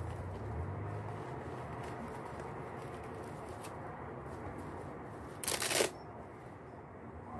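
Dry woven pandanus leaf strips rustling and crackling as they are handled and pulled apart, with a louder crackle about five and a half seconds in.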